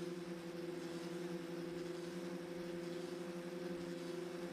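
Electric motors and 12-inch propellers of a DIY rotating-wing multirotor craft running steadily in flight: an even, multi-pitched drone that holds its pitch, heard from a camera mounted on the craft's wing.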